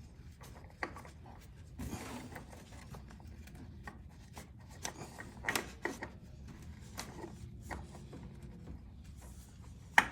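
Hands threading a new oil filter onto a motorcycle engine: scattered rubbing, light clicks and knocks, with one sharper click near the end.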